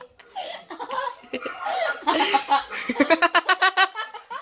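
A person laughing out loud, breaking into a quick run of short ha-ha pulses about three seconds in.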